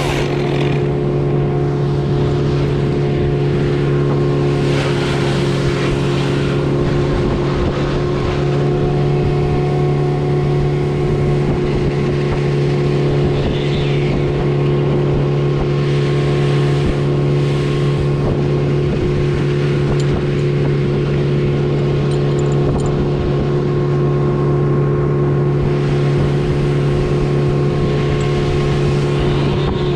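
An engine running steadily at one constant speed throughout, with an even pitch that does not rise or fall.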